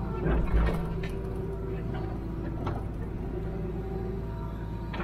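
Hitachi Zaxis 210W wheeled excavator's diesel engine running steadily, heard from inside the cab, with a couple of heavy knocks about half a second in and a few light clicks.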